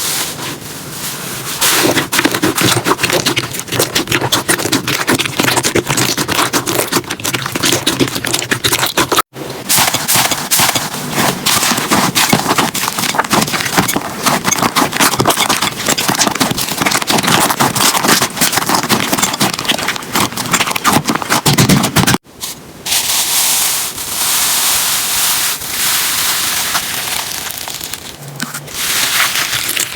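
Slime being squeezed, poked and stretched by hand, giving a dense stream of small crackles and pops. The texture changes at two short breaks, about 9 and 22 seconds in, and is smoother and more hissing after the second one.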